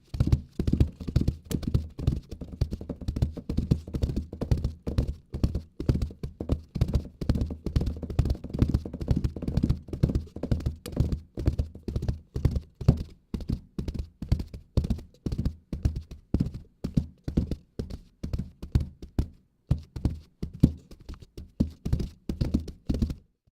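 Foley horse-hoof effect: hollow knocks struck in a fast clip-clop rhythm, several a second, with a short break near the end before they resume.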